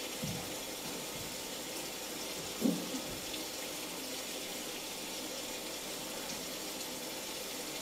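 Steady hiss of falling rain. There is one brief low thump about two and a half seconds in.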